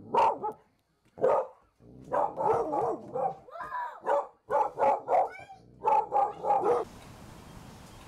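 Dog barking repeatedly in short bursts at a cat outside the window, with a few higher rising yelps among the barks; the barking stops abruptly about seven seconds in.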